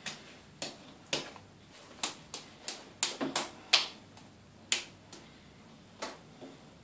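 A toddler's wet, soapy hands clapping together and slapping at bath foam: about a dozen sharp, irregular slaps, thickest and loudest in the middle.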